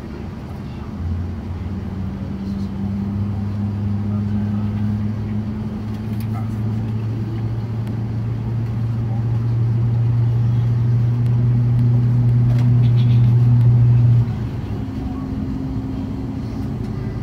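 Low, steady droning hum inside the cabin of an Airbus A350-900 on the ground. It swells over several seconds, then drops suddenly about fourteen seconds in.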